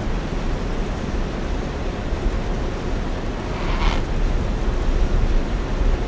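Steady low rumbling noise throughout, with one short, harsh croak from a great egret a little under four seconds in.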